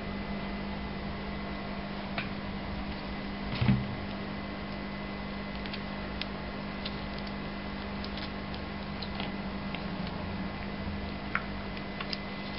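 Light clicks and taps of small parts being handled as the control unit of a Bosch VP diesel pump is lifted away with its cable and sensor, over a steady low hum, with one louder knock about three and a half seconds in.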